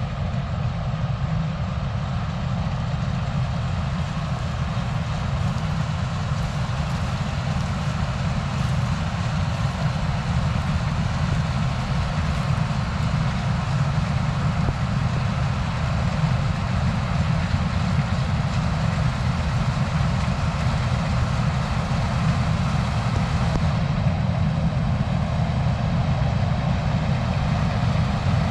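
Combine harvester running steadily while cutting soybeans: a constant low engine drone with an even wash of machinery noise above it.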